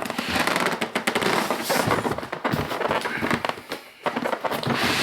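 Packaging being handled during an unboxing: dense crackling and rustling with many sharp clicks, dipping briefly about four seconds in.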